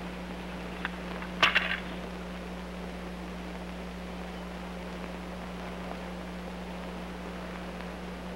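Steady low electrical hum and hiss from a worn film soundtrack, with one brief clatter about a second and a half in.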